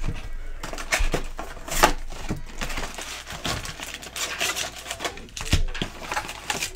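Cardboard trading-card hobby box being torn open and handled, with foil-wrapped card packs sliding out: irregular crinkling, rustling and light knocks.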